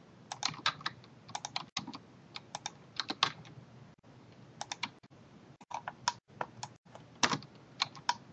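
Computer keyboard keys being tapped in irregular quick clusters of clicks, with short pauses between groups.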